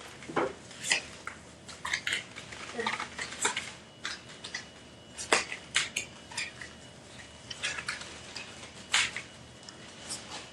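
Playing cards being handled and dealt onto a table: an irregular series of sharp clicks and light slaps.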